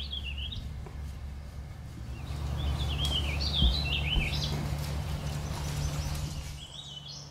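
A songbird singing a short warbling phrase at the start and another, longer one from about two and a half to four seconds in, over a steady low rumble.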